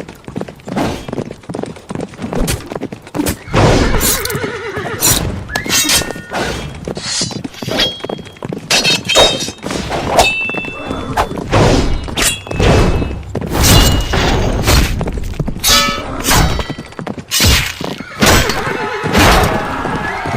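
Medieval battle sound effect: horses whinnying and hooves clattering amid many sharp clashes and thuds in quick succession.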